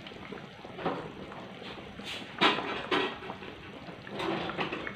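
Asam pedas gravy simmering in a wok, bubbling steadily with a few louder pops, the loudest about two and a half seconds in.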